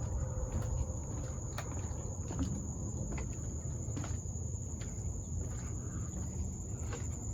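Insects keep up a steady, high-pitched, cricket-like drone, with scattered light clicks of footsteps on a wooden boardwalk and a low rumble underneath.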